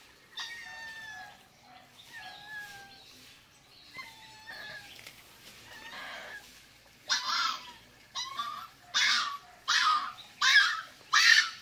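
Small puppy crying while being bathed. First come a few thin whines that fall in pitch, then from about seven seconds in a run of six loud, harsh yelps in quick succession. The crying is from pain and fright: the puppy has a scratched-open wound on its neck and is having its first wash in water.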